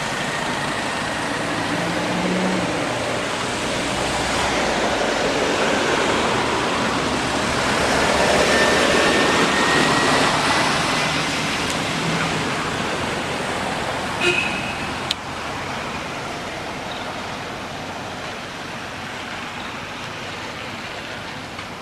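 Steady rushing noise like passing road traffic, swelling to its loudest about nine seconds in and then fading. A brief high squeak and a click come a little past the middle.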